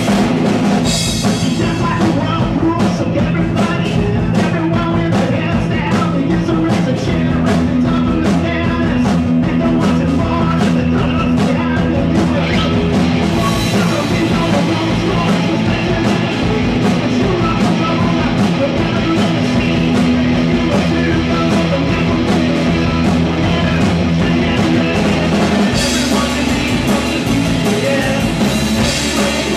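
Live rock band playing loud and without a break: electric guitars and bass guitar over a drum kit.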